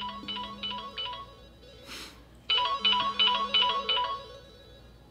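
Mobile phone ringtone for an incoming call: a short melody repeating in phrases with pauses between, the second phrase the loudest. A brief rushing noise about two seconds in.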